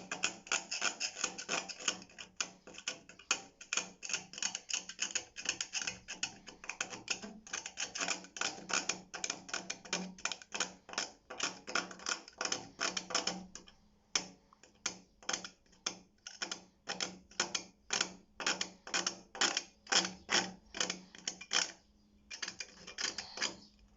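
A hand scraper scraping rust off the washing machine's sheet-metal panel in quick repeated strokes, about three a second, with a short break near the end.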